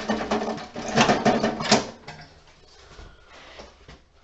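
Rattling and clicking of metal parts and wiring being handled in a sheet-metal emergency light housing. It is busiest in the first two seconds, then drops to softer, scattered handling noise.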